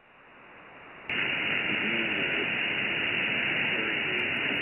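Shortwave radio static from an HF single-sideband receiver tuned to the 8992 kHz HFGCS channel: a steady hiss that starts quietly, then jumps up suddenly about a second in. A weak Emergency Action Message transmission is buried in it, with only faint traces of a voice barely audible under the noise.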